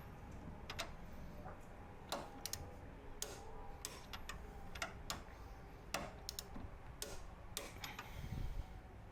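Torque wrench ratchet clicking in short, irregular runs as frame rail bolts are turned through the final 90 degrees that stretches the torque-to-yield bolts.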